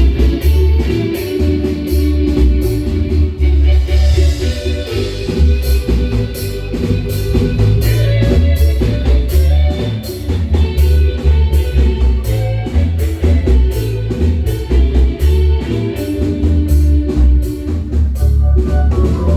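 Live marimba band music: marimba with a heavy bass line and a drum kit keeping a steady beat.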